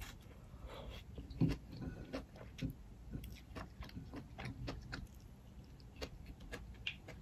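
Close-up eating sounds: chewing and wet mouth smacks while eating crab meat and rice by hand, a string of small irregular clicks with one louder knock about one and a half seconds in.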